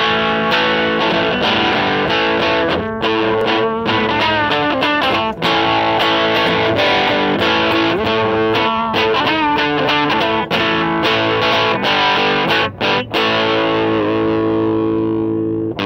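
Electric guitar played with heavy distortion through a small amplifier: a loud rock riff of chords and single notes, with a couple of quick stops about thirteen seconds in, ending on a held, ringing chord.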